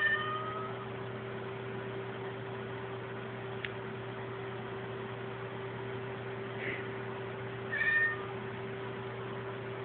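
Ragdoll cat meowing: a short meow at the start, then a fainter call and another meow close together about seven to eight seconds in. A steady low hum runs underneath.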